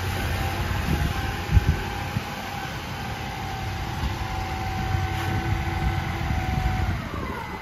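Honda Acty mini truck's small three-cylinder engine running at low speed, with a whining tone that falls away near the end as the engine winds down. A brief knock comes about one and a half seconds in.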